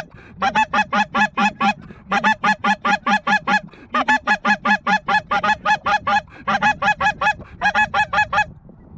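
Goose call blown in fast runs of short clucking honks, about five or six a second, each run lasting a second or two with brief pauses between: calling to draw in approaching geese.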